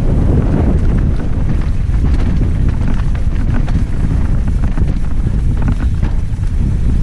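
Heavy wind buffeting on the camera's microphone during a fast mountain bike descent, with scattered clicks and rattles from the bike over rough trail.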